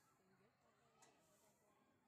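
Near silence, with faint, distant children's voices chattering and calling, and one faint click about halfway through.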